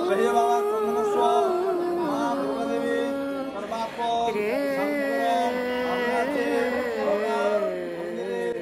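Devotional singing with music: long held notes that bend slowly from one pitch to the next.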